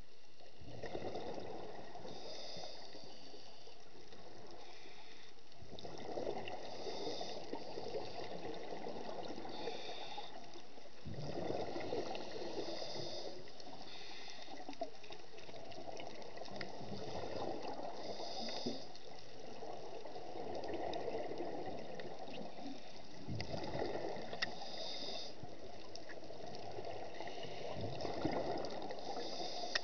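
Scuba diver's regulator breathing underwater: a repeating cycle of short hissing inhalations and longer bubbling exhalations every few seconds.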